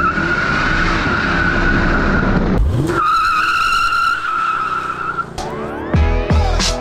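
Mercedes E55 AMG's rear tyres squealing in wheelspin, two long steady squeals with a short break between, while its supercharged V8 revs up underneath; the spinning tyres are smoking.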